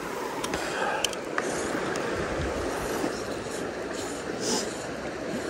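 Small freestone stream running steadily over shallow rocks around a wading angler's legs, with a few faint ticks in the first second or so.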